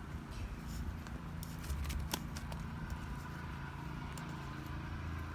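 Light plastic clicks and handling noises of an 8-port drip irrigation manifold being screwed onto a sprinkler riser, the sharpest click about two seconds in, over a steady low rumble.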